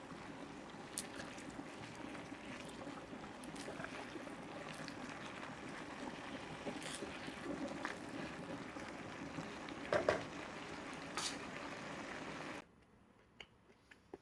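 Food cooking on the stove: a steady bubbling, sizzling hiss with scattered sharp pops, loudest about ten seconds in. It cuts off abruptly shortly before the end, leaving only a few faint ticks.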